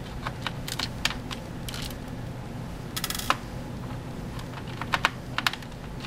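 Light clicks and taps of a small Phillips screwdriver working the hard-drive screws on a laptop's plastic underside, scattered and irregular, with a short scratchy rattle about three seconds in.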